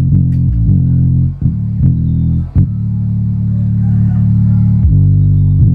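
Bass-heavy music played loud through a stack of ACR 6-inch woofers in folded-horn cabinets: a run of short deep bass notes, then one held for about two seconds before the line moves on near the end.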